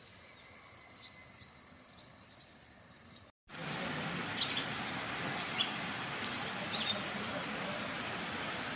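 Faint outdoor ambience with a few bird chirps, then, after a cut about three and a half seconds in, the steady hiss of heavy rain falling, with occasional short bird chirps over it.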